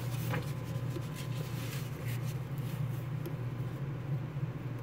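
Pages of an old paper booklet being handled and turned, a few soft paper rustles over a steady low hum.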